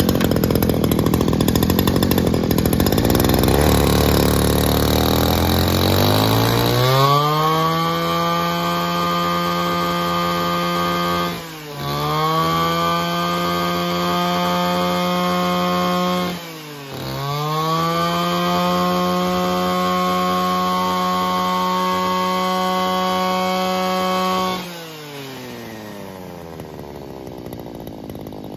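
Robin NB351 brush cutter's small two-stroke engine running: the revs climb over the first several seconds to a steady high-pitched whine at full throttle, drop briefly twice as the throttle is let off and reopened, and fall back to a quieter idle about 25 seconds in.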